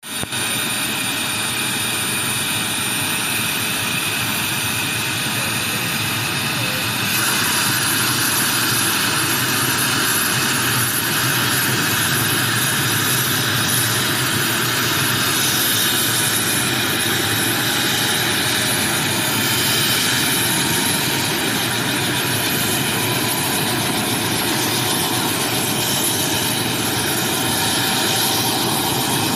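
Helicopter running steady and loud, its engine and rotor noise constant throughout and growing louder and brighter about seven seconds in.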